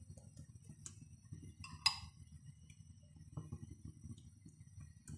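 A metal spoon clinking and tapping against the mixing bowl and frying pan as beaten egg mixture is spooned into a bread slice. A few light taps, the loudest a ringing clink about two seconds in, over a faint low hum.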